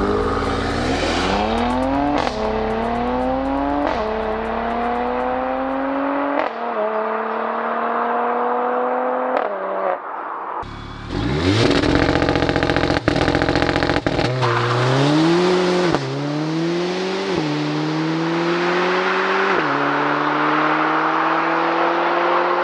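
A Mercedes-AMG C43 estate's twin-turbo V6 accelerates hard away from a standstill, its pitch climbing through each gear with about four quick upshifts. After a cut, a Mercedes-AMG CLA 45 Shooting Brake's turbocharged four-cylinder accelerates away the same way, rising and breaking at about four more upshifts.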